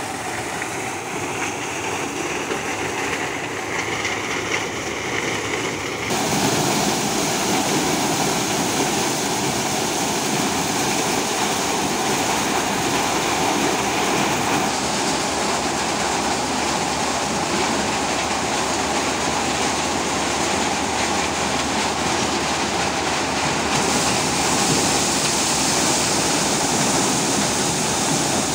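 Tractor-driven maize dehusker-sheller running: a steady, dense mechanical rushing noise of the drum and blower. It jumps louder and brighter about six seconds in and shifts again near the end.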